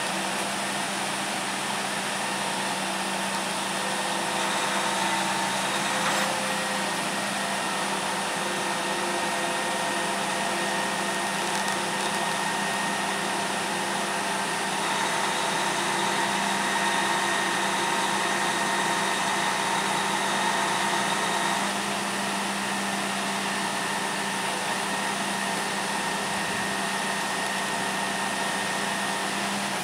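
Boom truck's engine running steadily with a high hydraulic whine as it powers the knuckle-boom crane, growing a little louder about four seconds in and again around fifteen seconds, then easing back a little after twenty seconds.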